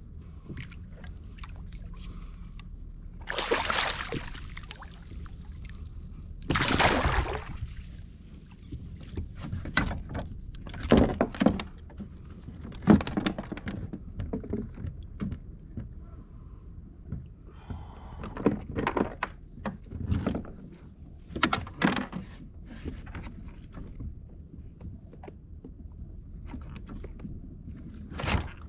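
Sounds of a fishing kayak on the water: two long rushing noises in the first seven seconds, then a string of knocks and clatters, over a low steady rumble.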